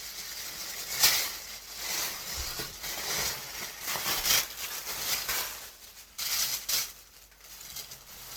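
Packaging rustling and crinkling in uneven bursts as clothing is unpacked from a mail-order box, loudest about a second in.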